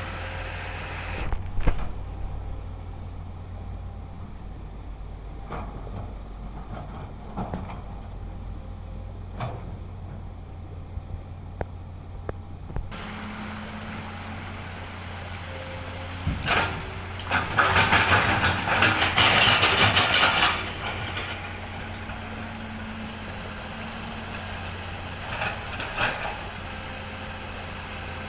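Komatsu hydraulic excavator's diesel engine running steadily, with scattered knocks and clanks. A loud, rough rushing stretch lasts about four seconds, starting some seventeen seconds in.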